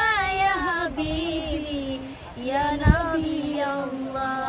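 Women's voices singing a slow sholawat, an Islamic devotional song praising the Prophet, with long wavering, ornamented notes and no instruments. There is a short low thump about three seconds in.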